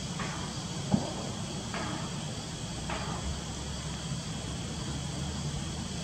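Steady outdoor background: a low hum with a faint high, steady whine, and a few faint brief sounds. One short knock about a second in is the loudest event.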